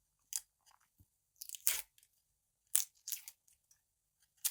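Dry, papery onion skin crackling as it is peeled off the onion, in about five short, crisp crackles spaced irregularly.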